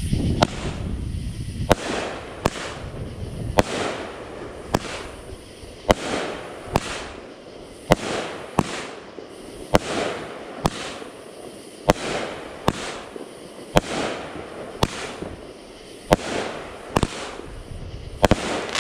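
Winda Fireworks 'Cherry Bomber' 200-gram 10-shot cake firing: a string of sharp reports about once a second as the shots lift and break, with crackling between them from the red dahlia and white strobe-and-crackle stars.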